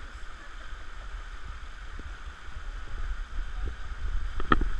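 Steady rushing water with wind rumbling on the microphone, and a brief sharp clatter about four and a half seconds in.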